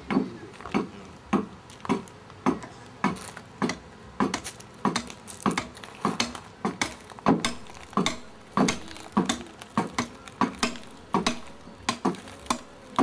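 A metal-bladed hand tool chopping into the wood of a canoe hull being carved by hand, in steady strokes of about two a second.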